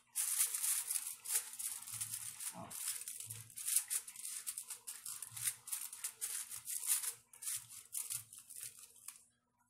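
Aluminium foil crinkling and crackling as hands press and crimp it tight around the rim of a glass baking dish. The crackles come quick and irregular and stop near the end.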